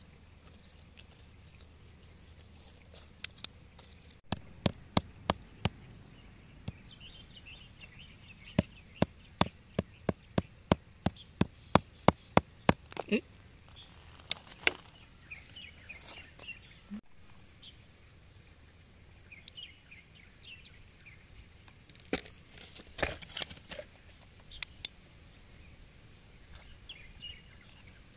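Sharp taps and knocks of a metal tool chipping at rock: a few, then a quick run of about three a second for several seconds, then scattered taps.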